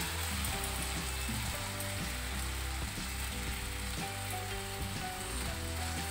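Blended onion, garlic and tomato paste frying in hot oil in a nonstick frying pan, with a steady sizzle.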